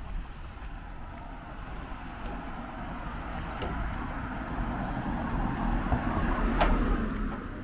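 A road vehicle passing: tyre and engine noise swells over several seconds, is loudest near the end, then fades quickly.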